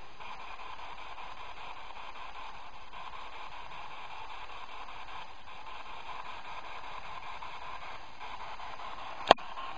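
Steady hiss of recording noise in a quiet room, broken once near the end by a single sharp click.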